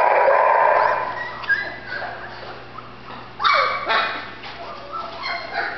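Golden retriever puppy whimpering and yipping in short cries, loudest at the very start and again about three and a half seconds in.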